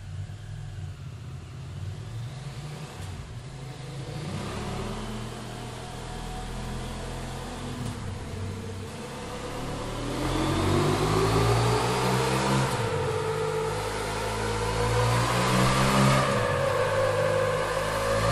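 KTM 790 Adventure R's parallel-twin engine running through its stock exhaust: idling at first, then revved several times, the pitch climbing and dropping back, louder in the second half.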